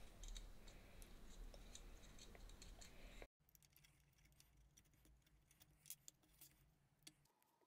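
Near silence with scattered faint clicks and taps of small 3D-printed plastic parts, screws and metal washers being handled. A low room hum cuts off abruptly about three seconds in.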